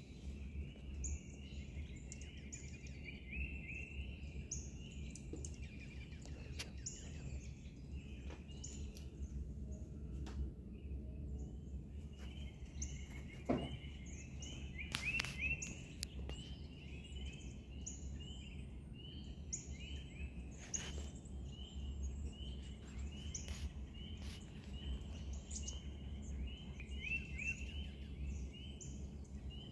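Dawn chorus of several songbirds chirping and twittering without a break, over a steady low hum, with one sharp tap about halfway through.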